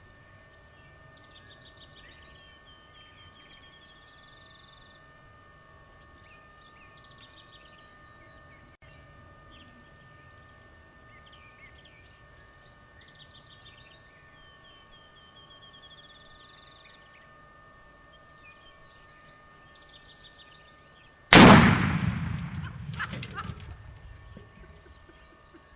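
A binary exploding target detonating once, hit by a .30-06 rifle shot: a single very loud blast about 21 seconds in, echoing away over a few seconds. Before it, a bird repeats a short song phrase several times over a faint steady hum.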